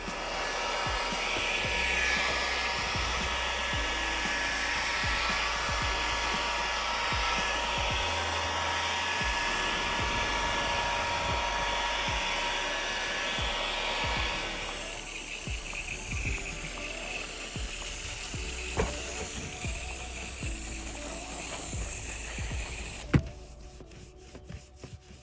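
Battery-powered Black+Decker leaf blower running steadily, then cutting out about halfway through. Background music with a low bass line plays underneath.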